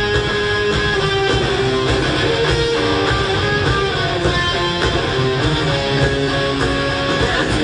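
Live rock band playing, with electric guitars to the fore over drums: a guitar line moving from note to note over steady strummed chords.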